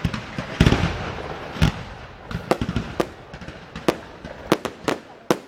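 Fireworks exploding: an irregular series of sharp bangs, with a denser crackling burst about half a second in.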